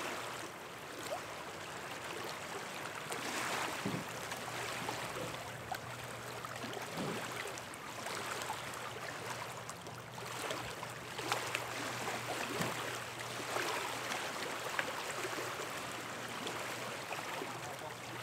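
Small waves lapping and splashing at the edge of a lake: a steady, uneven wash of water with occasional small slaps.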